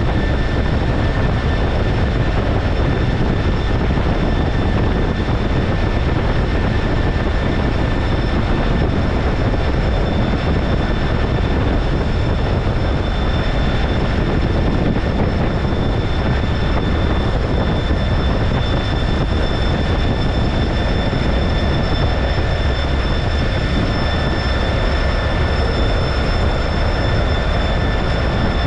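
T-33 jet trainer's turbojet engine running steadily: a constant loud roar with a high, even whine on top.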